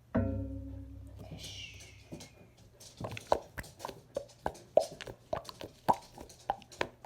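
A sudden pitched musical sting with a deep low layer sounds just after the start and fades over about two seconds, with a high falling swish over it. From about three seconds in come sharp taps, roughly two a second, typical of fingernails tip-tapping on a toy for ASMR.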